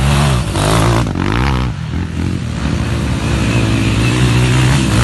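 Motocross dirt bike engines running hard, with the pitch rising and falling as the throttle is worked on and off.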